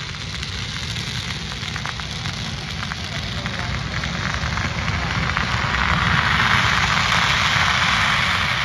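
A huge string of firecrackers going off in one dense, continuous crackle of countless tiny bangs, like heavy rain, swelling louder about two-thirds of the way in.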